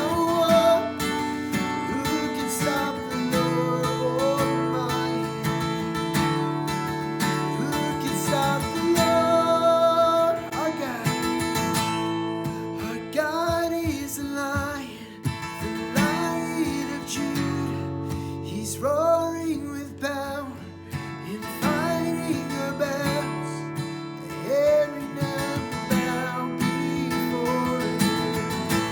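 Acoustic guitar strumming chords in instrumental worship music, with sustained bass notes and a few sliding melody notes.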